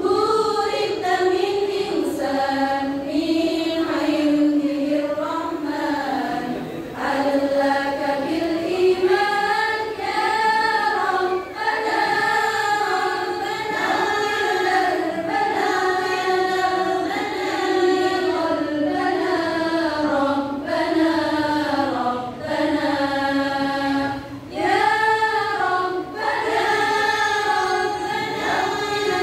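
Women's choir singing together, carrying one melody line in sustained phrases with short breaks between them.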